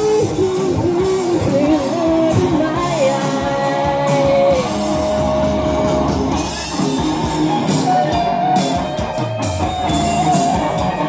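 Live band playing rock music through a PA, with a singer over guitar and drums; the singer holds one long note about three seconds in.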